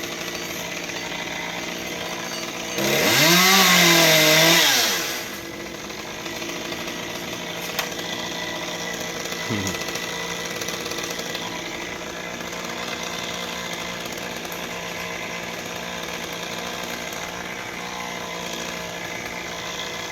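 Two-stroke chainsaw idling, revved up once for about two seconds around three seconds in, then settling back to a steady idle.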